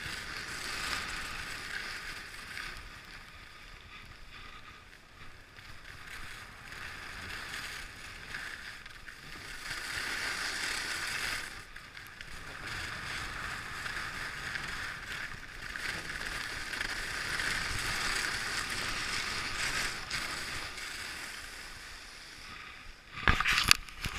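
Fischer skis sliding and carving over packed snow: a steady hiss and scrape of the skis on the piste that swells and fades with the turns. About a second before the end, a short burst of loud knocks.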